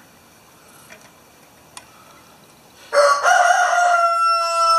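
A rooster crows once, starting about three seconds in and lasting about two seconds, with a slightly falling pitch.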